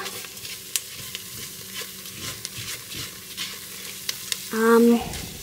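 Butter-and-flour roux sizzling in a saucepan as it cooks into a paste, stirred with a silicone spatula, with small crackles all through. Near the end a short hummed voice sound is the loudest thing.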